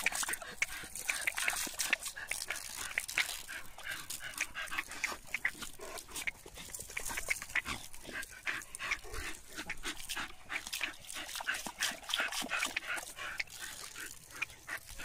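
Dogs lunging and snapping at the water jet from a garden hose, with water spattering and many quick, irregular splashes and jaw snaps mixed with dog sounds.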